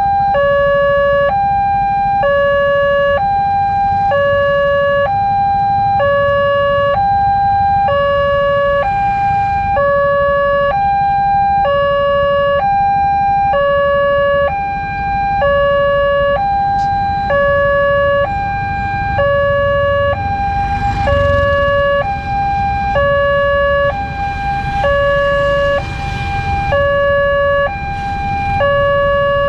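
Railway level-crossing warning alarm sounding: an electronic signal alternating steadily between a high and a low note, warning that a train is coming. Road traffic and idling motorcycles rumble underneath, busier in the second half.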